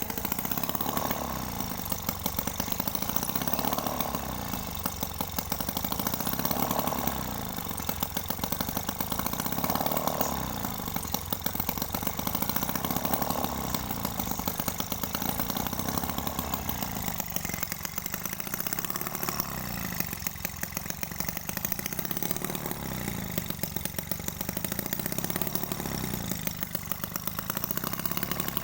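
Small homemade two-stroke engine, converted from a refrigerator compressor, running with a rapid firing buzz. Its speed rises and falls in an even cycle about every three seconds.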